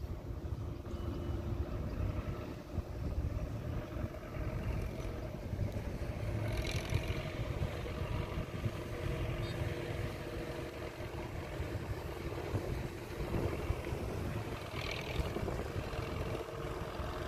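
Belarus MTZ tractor's diesel engine running steadily under load as it hauls a loaded cassava trailer, its drone wavering slightly in pitch.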